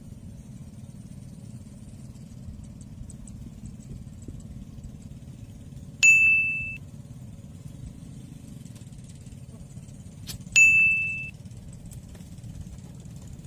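Two bright, single-pitched dings about four and a half seconds apart, each ringing out for under a second, over a steady low rumble.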